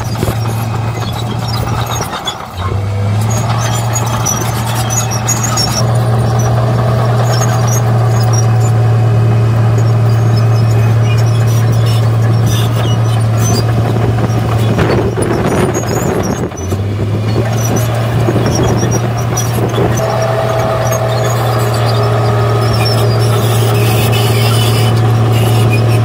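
Komatsu D53P crawler bulldozer's diesel engine running steadily under load as it pushes soil with its blade. The engine note drops briefly twice, a couple of seconds in and about two-thirds of the way through, then picks back up.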